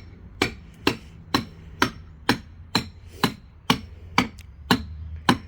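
Hammer blows struck steadily, about two a second, driving wedges to break apart black walnut logs frozen together with ice.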